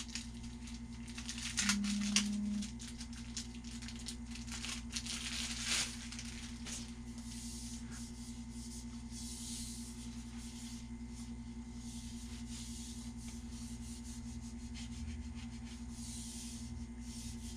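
Steady low electrical hum, with scattered faint clicks and rustles of a bow and its packaging being handled. About two seconds in there is a short, steady low tone lasting about a second.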